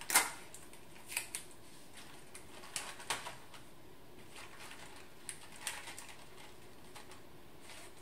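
Sticky tape snapping off the teeth of a desk tape dispenser just after the start, followed by scattered light rustles and taps of paper being handled and taped.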